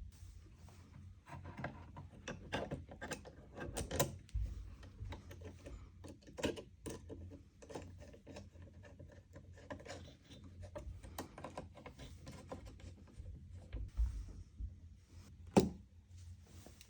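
Irregular small clicks and light knocks of computer hardware being handled and fitted, with one sharper knock near the end, over a steady low hum.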